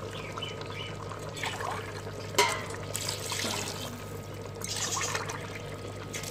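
Water poured by the glassful from a steel tumbler into a large aluminium pot of chicken and vegetable broth, splashing into the liquid in several pours, with one sharp knock about two and a half seconds in.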